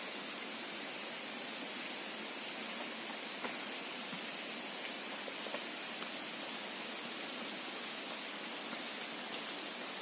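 Steady, even hiss with a few faint clicks scattered through it.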